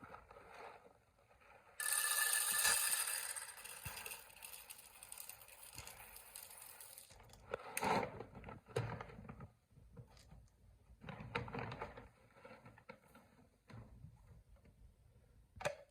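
HiBREW G3 electric conical burr coffee grinder starting suddenly about two seconds in and grinding beans, a motor whine over a grinding rasp, loudest at first and fading over the next few seconds. A few clicks and knocks follow.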